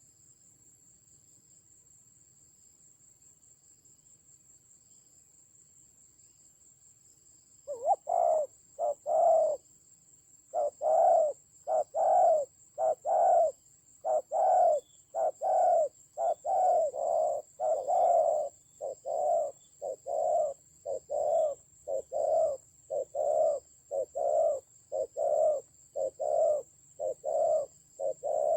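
Spotted dove cooing: a long, fast run of short, low coos, about one and a half a second, starting about eight seconds in. A steady high insect trill runs underneath.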